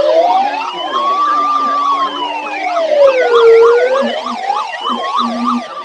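Emergency sirens: a slow wail rising and falling over about three seconds, overlapped by a fast yelp sweeping up and down several times a second that comes through most strongly in the second half.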